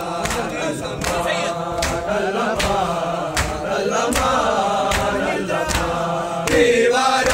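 Many men's voices chanting a noha together, marked by sharp strokes of hands beating on chests (matam) at an even beat of about one every three-quarters of a second. About six and a half seconds in, the voices swell louder.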